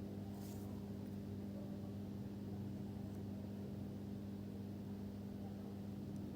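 A steady low hum made of a few even tones, unchanging throughout, with no knocks or clicks.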